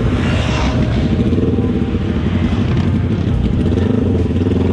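An engine running steadily at a fast, even beat, with no revving.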